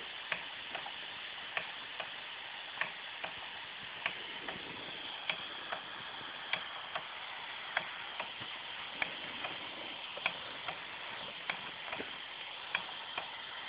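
Antique Schoenner vertical live-steam engine running under steam from its alcohol-fired boiler: a steady hiss with sharp ticks in uneven pairs, a little more than one pair a second.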